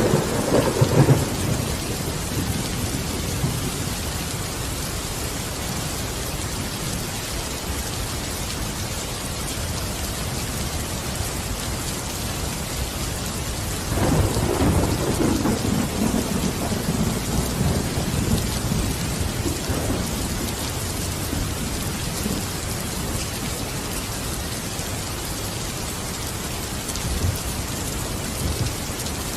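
Steady, heavy rain with thunder. A roll of thunder fades out in the first second or so, a louder rumble comes in about halfway through and dies away over several seconds, and a faint rumble follows near the end.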